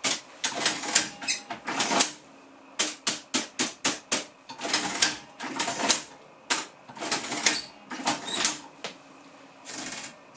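Burroughs Class 8 portable adding machine being worked: keys and function buttons pressed and the crank handle pulled, giving runs of sharp clacks and clattering from the key, adding and printing mechanism. The machine runs freely now that its stuck total lever has been cleaned and oiled. Near the end there is a short tearing sound as the printed paper strip is torn off.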